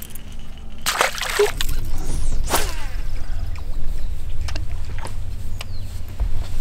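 A largemouth bass released over the side of a boat, splashing into the lake about a second in, followed by water sloshing. A second short rush of noise comes about two and a half seconds in, with a few light clicks after it.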